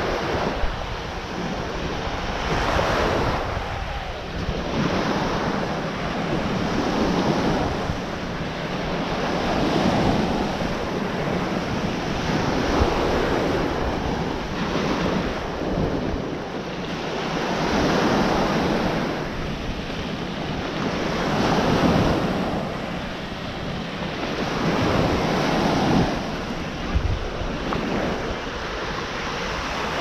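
Ocean surf washing on the beach, a steady rush that swells and eases every few seconds, with wind rumbling on the microphone.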